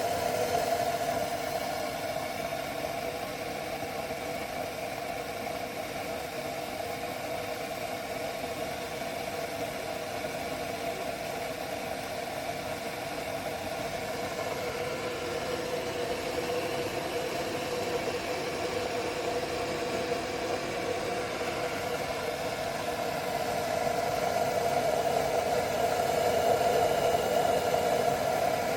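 Govee stainless-steel gooseneck electric kettle heating cold water toward its 180 °F setting, a steady rushing hum that grows louder over the last few seconds.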